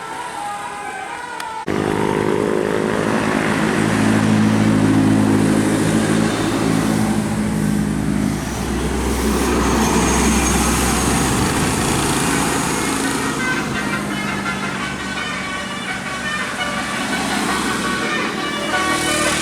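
A bus engine running loud close by, amid road traffic noise. It comes in abruptly about two seconds in, with the deep engine note strongest in the middle.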